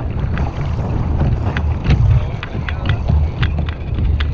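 Wind buffeting the camera microphone as a steady low rumble, with scattered sharp clicks and taps.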